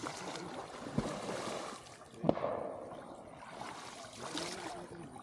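Water splashing and sloshing as men wade through shallow muddy water and plunge conical wicker fish traps (ottal) into it. Two sharp knocks come about one second in and a little after two seconds.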